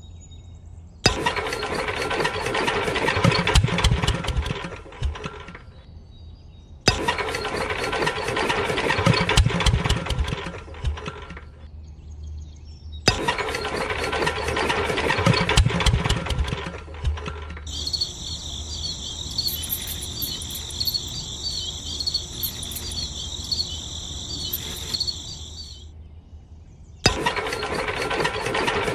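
Miniature single-cylinder diesel engine model being hand-cranked in four bursts of a few seconds each, stopping in between: repeated attempts to start it. Between the third and fourth bursts a steady high buzz with flickering ticks is heard.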